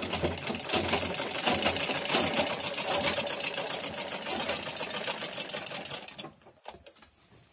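Black SAGAR sewing machine stitching a seam, a fast, even clatter of needle and mechanism that stops about six seconds in, leaving a few faint clicks.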